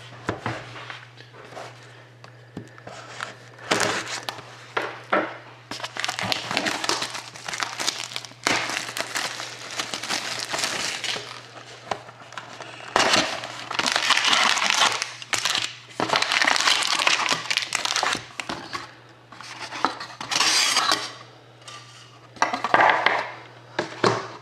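Cardboard hobby box of 2013-14 Upper Deck SP Game Used hockey cards being opened and its foil card packs handled, the wrappers crinkling and rustling in irregular bursts. A steady low hum sits underneath.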